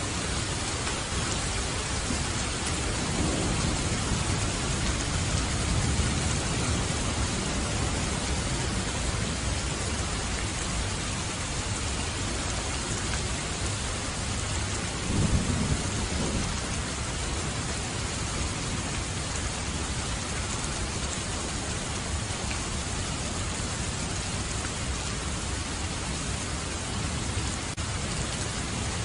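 Steady rain falling in a thunderstorm, with a low rumble of thunder swelling about halfway through and a fainter one near the start.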